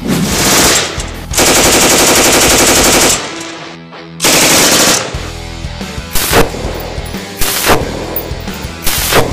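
Belt-fed machine gun firing on automatic: a burst right at the start, a long burst of about two seconds, a shorter burst, then three short sharp reports spaced out through the rest, over background rock music.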